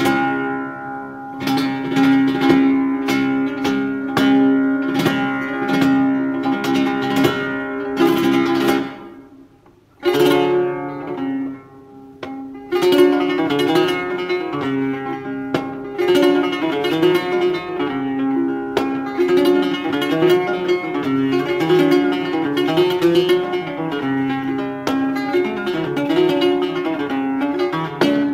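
Solo flamenco guitar playing siguiriyas: sharp strummed chords that ring out, a near-stop about ten seconds in, then a busier, continuous passage of picked notes.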